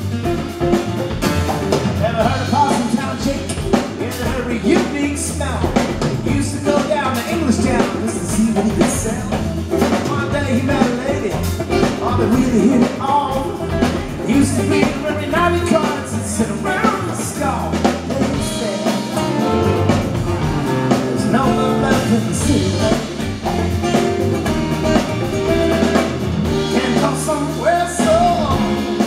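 Live acoustic band playing: two acoustic guitars strummed over electric bass and hand drums, with a man singing lead.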